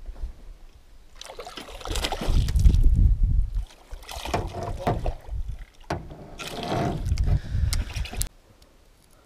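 A hooked smallmouth bass thrashing and splashing at the surface beside an aluminium boat as it is scooped into a landing net. The sound comes in three loud, noisy bursts of a couple of seconds each and stops short about a second before the end.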